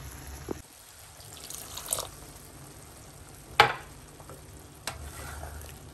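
Wooden spatula stirring thick chicken dal in a non-stick pan, with low sizzling and four sharp knocks of the spatula against the pan, the loudest about three and a half seconds in.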